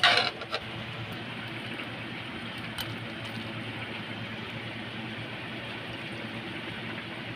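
Steady low hum with a hiss, like a running motor, opening with a sharp click and a couple of faint clicks later.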